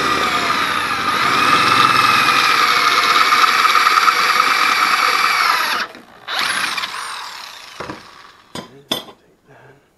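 Handheld electric drill boring into a steel strap plate. It runs steadily for about six seconds, its pitch wavering under load, then stops. A shorter second run winds down in pitch, and a few sharp clicks follow as the drill and plate are handled.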